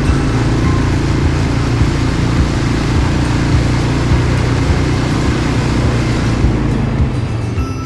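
ATV quad bike engine running steadily under a broad hiss. The hiss thins out about six and a half seconds in.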